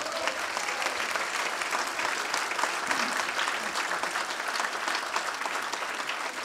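Audience applauding: dense, steady hand clapping from a room full of people.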